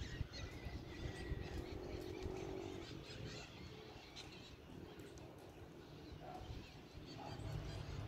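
Outdoor ambience: scattered bird chirps over a low, steady rumble.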